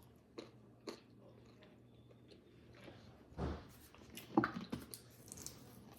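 Faint chewing of pizza close to the microphone, with a few short mouth clicks and a couple of louder brief mouth sounds a little past halfway.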